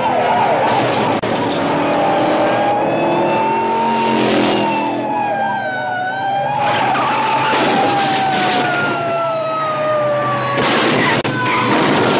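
Car chase sound effects: a police siren wailing, its pitch slowly rising and falling, over repeated bursts of tyre screeching.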